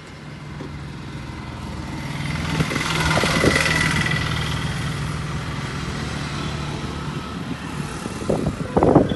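A motor vehicle driving past: a steady engine hum, with tyre and road noise that builds to a peak three to four seconds in, then eases off.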